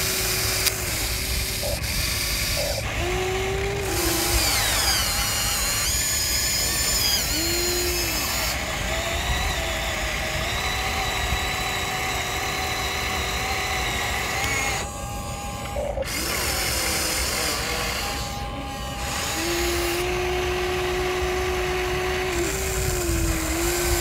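Small electric motors of a remote-control toy excavator whining as its arm and bucket move. The whine starts, bends in pitch and stops in runs of a few seconds each, over a steady low rumble.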